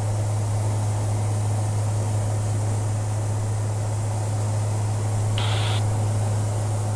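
Steady drone of a single-engine Maule light aircraft's engine and propeller heard from inside the cabin in level cruise, a constant low hum under an even rush of noise. A short higher-pitched sound comes in about five and a half seconds in.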